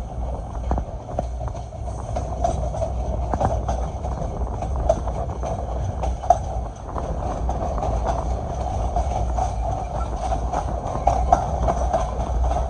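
Passenger train running on the rails: a steady low rumble with irregular clicking and clacking of wheels over rail joints, and a couple of louder knocks.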